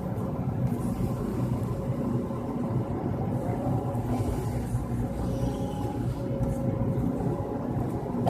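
Excavator's diesel engine running steadily, a low continuous hum.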